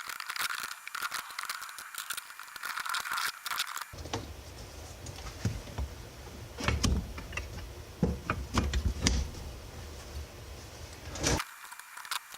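Small metal drum-brake parts clinking and rattling as they are handled and fitted onto the brake assembly, with dense clicking in the first few seconds and scattered clinks after.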